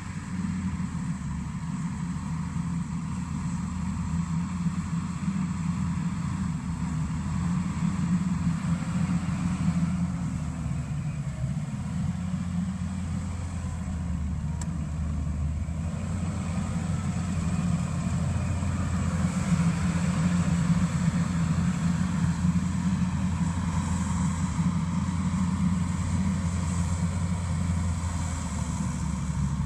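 Mustang MTL325 compact track loader's diesel engine running steadily under load as it pushes dirt, getting somewhat louder in the second half.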